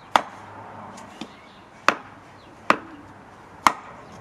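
Five sharp chopping strikes, one of them faint, irregularly spaced about a second apart.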